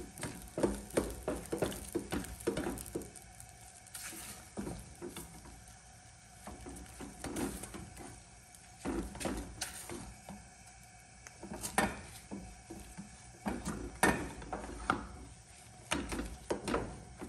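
Silicone spatula stirring and mashing thick corn fufu dough in a stainless steel saucepan, with irregular scrapes, squelches and knocks against the pan's sides and bottom. The strokes come thick and fast in the first few seconds, then in bursts with short pauses.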